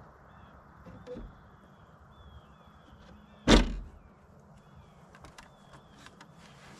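Climbing down the ladder of an elevated metal deer stand: one loud knock about three and a half seconds in, with a smaller knock before it and light taps and clicks afterward.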